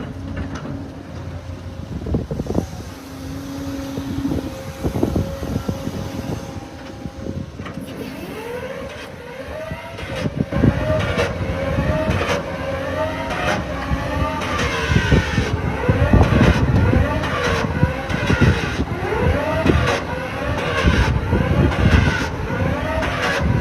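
Excavator working: its engine and hydraulics run steadily at first, then from about eight seconds in the pitch rises and falls over and over, about once a second, as the machine is worked. Sharp knocks are heard throughout.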